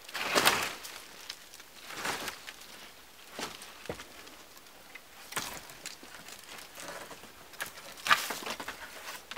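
Dry dead branches scraping, rustling and knocking against a shelter frame as they are lifted and leaned into place, in a handful of separate bursts with a few sharp knocks; the loudest come about half a second in and about eight seconds in.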